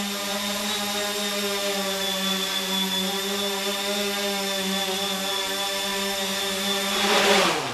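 Hunter V-Tail 400 quadcopter's 1000 kV brushless motors with 9-inch props, running with a steady buzzing hum while it flies. Near the end the hum swells briefly, then spins down with a falling pitch and stops as the craft lands.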